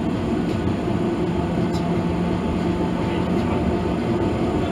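Blackpool double-deck tram 707 running along the track, heard from inside the driver's cab: a steady rumble of wheels on rails and running gear, with a faint low hum in the middle.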